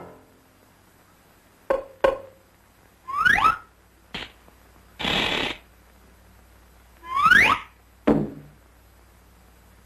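Early sound-cartoon effects with no music behind them: two sharp knocks, a quick rising whistle, a click, a short burst of hiss, a second rising whistle, then a final knock that rings briefly.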